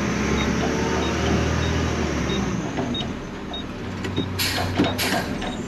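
Garbage truck engine running under way, then easing down to a quieter idle about halfway through as the truck stops, with a short high beep repeating about every two-thirds of a second. Near the end come two short bursts of air hiss from the truck.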